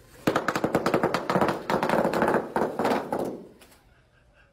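Rapid crackling pops of bubble wrap bursting under the wheels of a rolling power wheelchair. The pops start about a quarter second in, run together thickly, then thin out and stop a little after three seconds.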